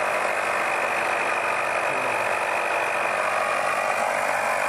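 Steady mechanical running noise: a constant hiss with a faint high whine, unchanging throughout.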